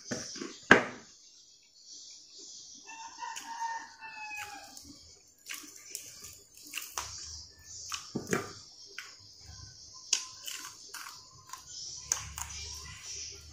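Close eating sounds of a meal eaten by hand: scattered sharp clicks and smacks of fingers, food and plate, the loudest about a second in. A bird gives one long call, falling slightly in pitch, about three seconds in, over a steady high hiss.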